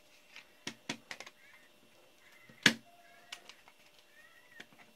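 Clicks and knocks of a laptop's plastic and metal chassis being handled and turned over, in a quick cluster about a second in and one sharp knock about halfway through.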